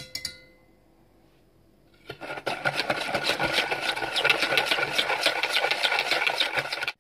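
Wire whisk beating sugar and water in a plastic measuring jug: quick, rhythmic, gritty scraping strokes start about two seconds in and stop abruptly just before the end. A few light clicks are heard at the very start.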